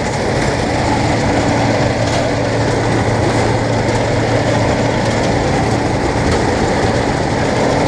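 Bizon Z040 combine harvester running while cutting grain, heard up on the operator's platform: a steady, loud engine and machinery drone.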